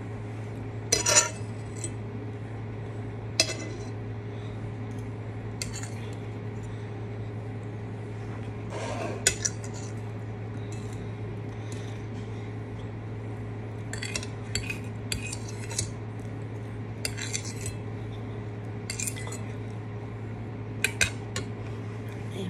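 Metal fork clinking and scraping on a dinner plate as food is scooped up: scattered sharp clinks with pauses between, bunched more closely in the second half, over a steady low hum.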